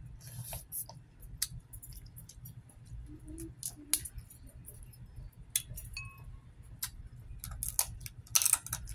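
Boiled blue crab shells being cracked and pulled apart by hand, with eating noises: irregular sharp clicks and crunches, the loudest cluster near the end.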